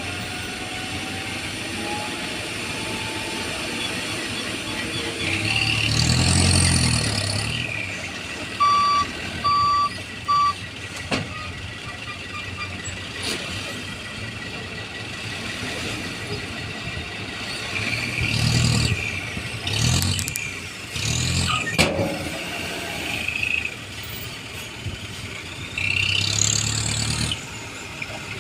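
Diesel dump truck engines running at a dirt unloading site, with several louder surges that each carry a low rumble and a hiss. About nine seconds in, a reversing alarm beeps three times.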